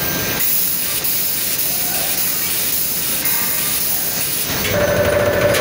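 Steady hissing as molten iron is poured from a ladle into sand casting moulds, over the general noise of the foundry floor. A steady humming tone joins near the end.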